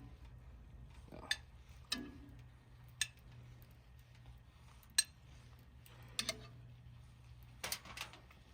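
Scattered clinks and taps of metal utensils against cookware and dishes, about eight over a few seconds, a few of them ringing briefly, over a low steady hum.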